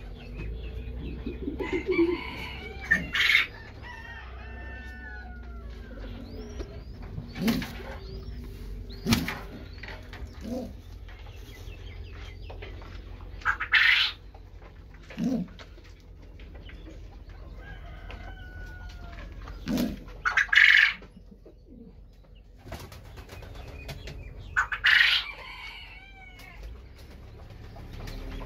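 Bird sounds in a pigeon loft: King pigeons cooing low near the start, then a series of loud, short, high calls from other birds, with a few sharp knocks and wing flaps and faint chirps in between.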